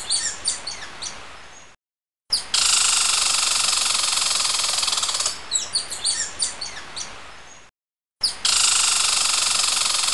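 Quick, high, falling animal chirps over a steady high hiss, repeating as a loop. Chirps come at the start and again about five seconds in, and the sound cuts out briefly twice.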